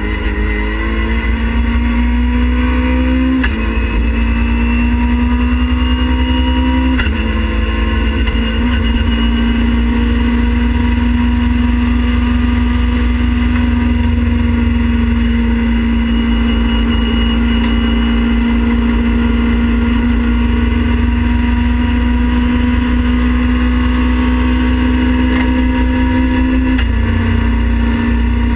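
Race car's engine at full throttle, heard from inside the cabin, accelerating up through the gears. Quick upshifts come about three and a half and seven seconds in. A long pull follows at around 7,000 rpm, rising slowly until another upshift near the end.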